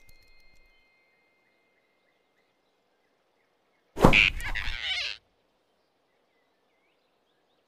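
Cartoon sound effect of a grab: a sudden thump about four seconds in, followed by about a second of rustling scuffle as a big rabbit's hand snatches a flying squirrel off a branch.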